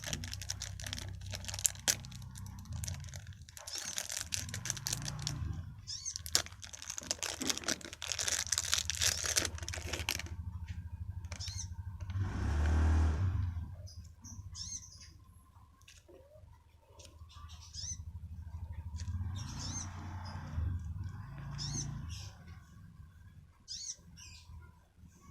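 Slime being squeezed and worked by hand, giving dense runs of small wet clicks and pops, with a short rushing swell about halfway through.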